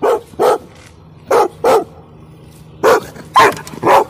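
A large shepherd-type dog barking from the truck's open window: seven loud, short barks, mostly in pairs. It is a guard bark, given on the command to guard the truck at a hand reaching for the door.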